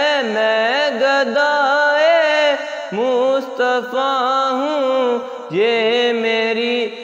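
A young male voice reciting an Urdu naat without instruments, holding long, wavering, ornamented notes between the verse lines, with short breaths about three and five and a half seconds in.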